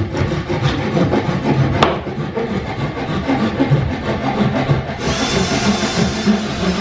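Cordless drill driving screws through a board into a plywood sled base, the motor running in uneven spurts against the wood; a higher, steady motor whine comes in about five seconds in. A single sharp knock sounds about two seconds in.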